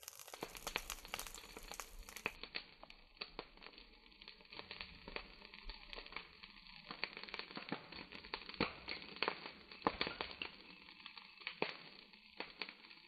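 Dry grass burning in an open fire, crackling faintly with irregular sharp snaps.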